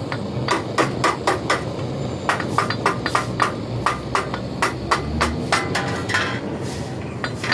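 Hammer tapping repeatedly on metal, about three or four quick strikes a second, with a short pause about two seconds in and stopping near the end.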